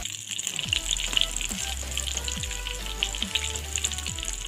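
Maida dough chips deep-frying in hot oil in a kadai, a steady crackling sizzle.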